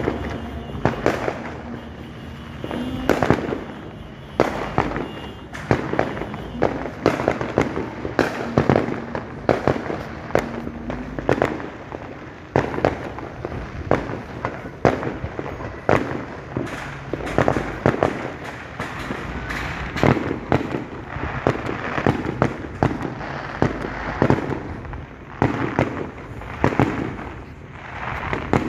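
Fireworks going off without a break: a dense, irregular run of sharp bangs and crackling pops, several a second.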